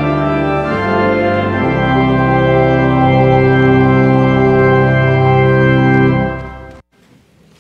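Church organ playing the closing chords of a hymn. It settles on a long held final chord that fades and stops a little before the seven-second mark.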